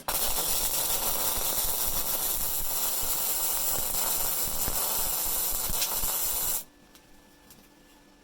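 Rohr MIG-250MI inverter MIG welder's arc running on 5.5 mm mild steel at power 4, wire speed 4: a steady, loud crackling hiss that starts suddenly and cuts off about six and a half seconds in. The bead it lays comes out as a big blob, which the welder puts down to too little travel speed.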